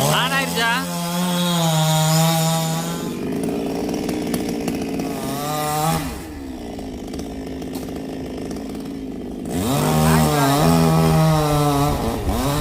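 Two-stroke chainsaw run at high revs, dropping back to idle about six seconds in, then revved up again at about ten seconds.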